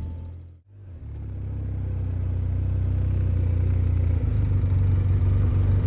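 ATV engine running steadily as the quad rides over the sandy ground, a low rumble heard from the rider's seat. It comes in about a second in and grows louder over the next few seconds.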